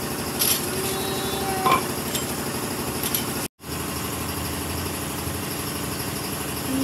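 A small engine or motor running steadily, with a brief drop-out about halfway through.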